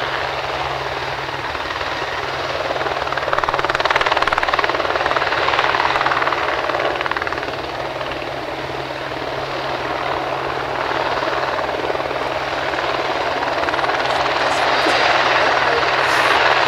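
Aerospatiale AS355F-2 twin-turbine helicopter hovering low, its turbines and main rotor running steadily with a fast rotor beat. The sound swells louder a few seconds in and again near the end.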